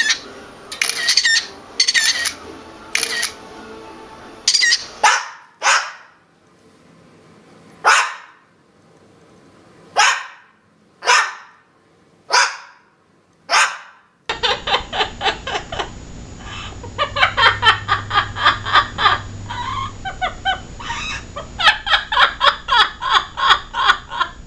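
Parrot calling and mimicking in a string of short clips. First come loud short calls. Then a run of sharp calls, each dropping quickly in pitch, about one a second, like imitated barks. After a cut comes a fast chatter of repeated notes.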